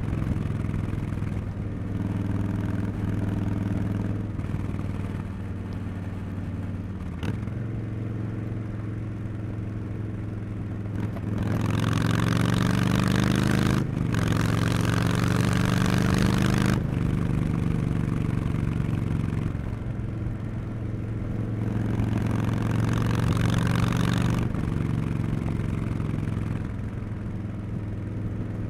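Harley-Davidson Street Bob 114's Milwaukee-Eight 114 V-twin engine, through Cobra Neighbor Hater slip-on mufflers, running under way on the road. It pulls and eases off in turn, the note rising as it accelerates, with two short sharp breaks in the sound.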